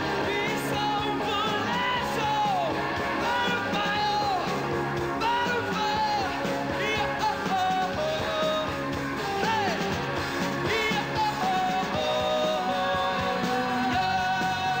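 Rock band playing live: a male lead singer singing and sliding between notes over electric guitar and drums.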